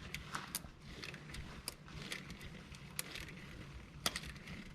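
Faint, scattered clicks and clinks of a socket wrench and metal on metal, a handful of them at uneven intervals, as a new oil pressure switch is worked into a Honda four-cylinder engine.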